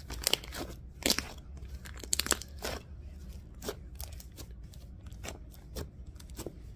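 Sticky, lightly activated slime being kneaded and pulled apart by hand, giving a run of sharp clicks, pops and tearing crackles as it sticks and lets go. They come thick over the first three seconds, then more sparsely.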